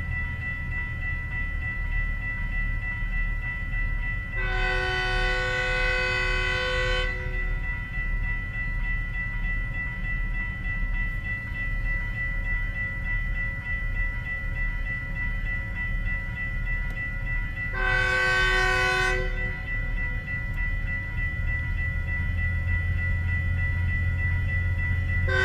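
Railroad grade-crossing warning bell ringing steadily while an approaching Metrolink commuter train sounds its multi-note air horn: one long blast about four seconds in and a shorter one about eighteen seconds in, over a low rumble.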